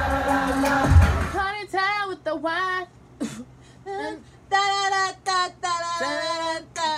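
Loud live concert music from a K-pop arena show, with a heavy bass beat, cuts off about a second and a half in. A woman then sings unaccompanied in short phrases with sliding pitch.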